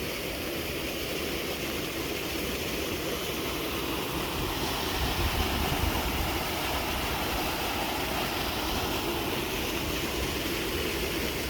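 Steady rushing noise of flowing water running past a fish trap, with a low rumble underneath.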